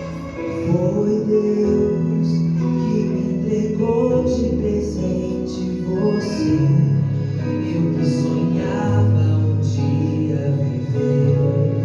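Ceremony music: a song with a singing voice over sustained instrumental accompaniment.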